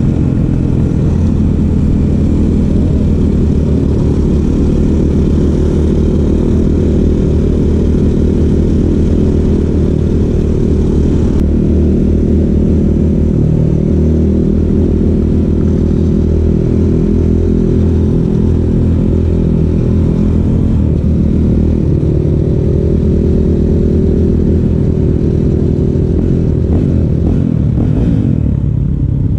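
Honda CRF450L dirt bike's single-cylinder four-stroke engine running under way on the trail, its note shifting up and down with the throttle.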